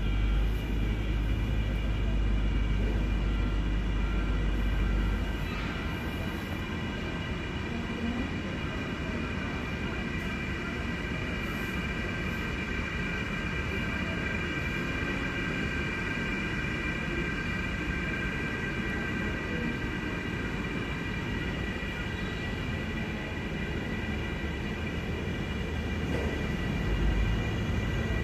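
Boeing 737-800's CFM56-7B turbofan engines running at taxi power, a steady high whine of several tones over a low rumble. The rumble is heavier for the first five seconds and swells again near the end.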